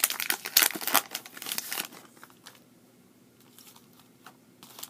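Foil booster pack wrapper of Pokémon trading cards crinkling and tearing as it is ripped open. The crinkling is dense for about two seconds, then gives way to a few faint rustles as the cards are handled, with a short crinkle near the end.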